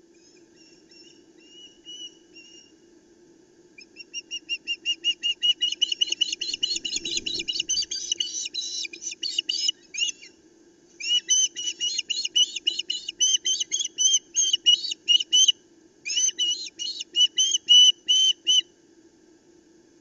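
Ospreys calling at the nest: rapid runs of high, whistled chirps, several a second, growing loud about four seconds in and broken by short pauses. This is excited calling as a fish is brought to the nest. A soft low thump of wings comes about seven seconds in, as a bird lands.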